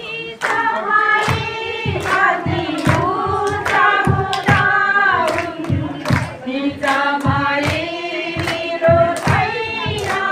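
A crowd singing a devotional song together, with hands clapping along in time about twice a second.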